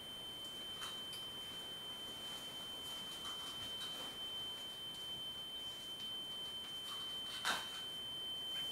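A steady high-pitched ringing tone that holds one unchanging pitch, with a single short knock about seven and a half seconds in.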